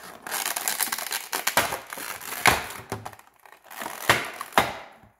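Clear plastic insert of a Funko Pop box crinkling and crackling as the vinyl figure is worked free of it, with several sharp louder snaps of the plastic; kind of loud.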